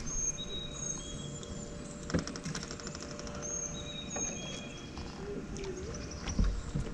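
Birds singing: repeated high, thin whistled notes, with a quick run of ticks about two seconds in and a low thump near the end.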